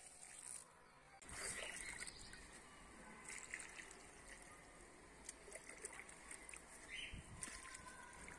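Faint trickle and splash of liquid fertilizer solution poured from a plastic jug onto soil.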